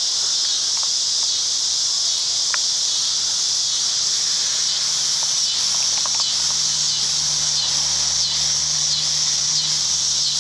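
A chorus of cicadas in the trees, a loud, steady, high buzzing drone that begins to pulse gently about halfway through. A faint low hum sits underneath in the second half.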